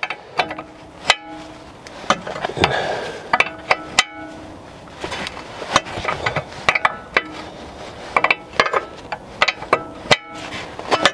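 Hand wrench clinking against steel suspension parts in irregular, sharp metallic knocks, some of which ring briefly. The wrench is turning a control-arm nut that keeps spinning without coming off.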